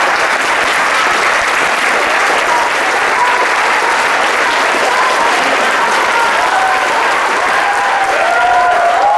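A roomful of people clapping steadily together, with voices calling out over the applause, stronger near the end.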